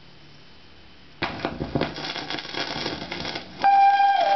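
Vinyl record playing on a Sony LBT-A195 stereo: quiet surface hiss of the lead-in groove, then the recorded music starts suddenly about a second in, with a held melody note entering near the end.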